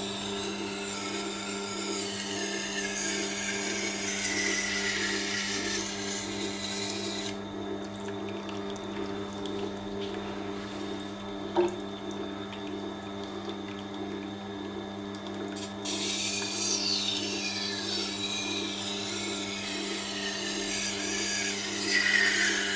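Tormek T8 wet sharpener running with a steady motor hum while a knife edge is ground against the wet, turning stone, a hissing scrape. About seven seconds in, the grinding stops for some eight seconds, leaving only the machine's hum and a single click, then the scraping starts again.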